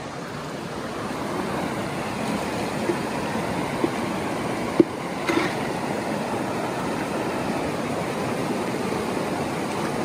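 River water rushing over rocks in shallow rapids, a steady rush with a few brief knocks about halfway through.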